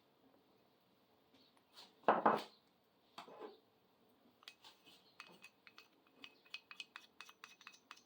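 Paint cups and tools clinking and tapping as acrylic paint is handled for pouring: a couple of short scrapes, then many quick light clicks from about halfway through.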